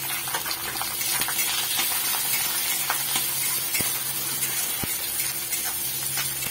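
Chopped onions sizzling steadily in hot mustard oil in a kadai while a steel spatula stirs and scrapes them, with small clicks throughout and two sharper taps of the spatula on the pan in the middle.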